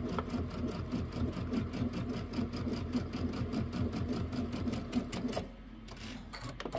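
Sewing machine stitching a seam through pieced quilt blocks at a steady speed: a fast, even needle rhythm over a motor hum that stops about five seconds in.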